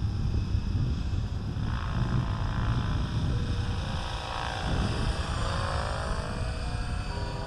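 Align T-Rex 550E electric RC helicopter in flight: the whine of its motor and rotor blades. About two seconds in it grows stronger and glides up and down in pitch as the helicopter passes nearer.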